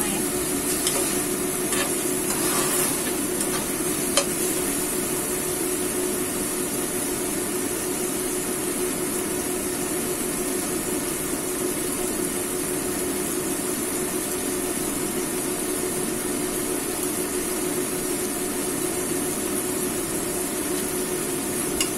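Diced chicken sizzling steadily in oil in a nonstick frying pan, with a metal spatula scraping and knocking against the pan a few times in the first few seconds. A steady low hum runs underneath.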